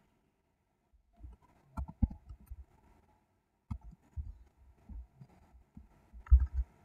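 Computer keyboard keystrokes: an irregular run of short clicks with dull thumps, coming in small clusters and loudest near the end.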